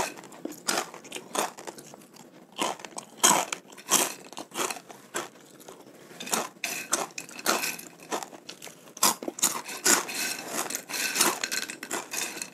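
Crispy fried macaroni snack being bitten and chewed: an irregular run of sharp, crisp crunches.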